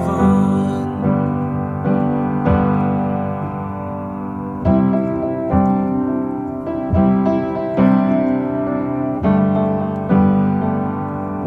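Background music: soft piano chords struck about once a second, each note left to ring and fade.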